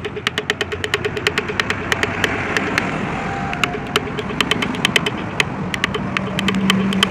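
Wood-carving chisel cutting into a scrolled relief panel: rapid, sharp taps, about six or seven a second, as the blade is driven along the pencilled outline.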